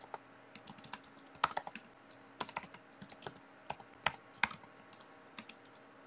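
Typing on a computer keyboard: irregular, quick keystrokes entering a shell command.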